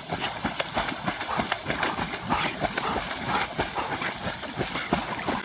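A dog's claws and feet tapping and clattering on a hard tabletop: rapid, irregular clicks and knocks, several a second.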